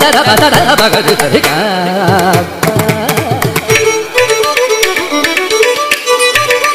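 Carnatic classical concert music in raga Mohanam: a male voice sings heavily ornamented, sliding phrases over mridangam strokes, and about four seconds in a violin takes up the melody in steadier, stepped notes.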